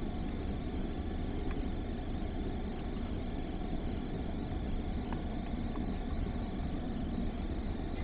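A car engine idling steadily, heard from inside the car's cabin, with a few faint clicks.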